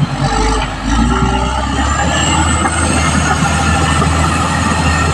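Caterpillar D6R XL bulldozer's diesel engine running steadily under load, dipping briefly a little under a second in.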